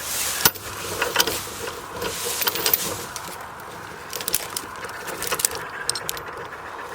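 Irregular clinks and knocks of a metal tow chain being handled and hooked around a felled tree trunk, with rustling and snapping of twigs underfoot. A sharp knock comes about half a second in, and a run of quicker clicks about four to six seconds in.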